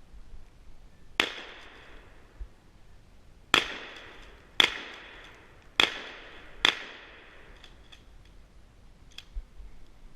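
Five shotgun shots: one, then after a pause four more about a second apart, each dying away in an echo.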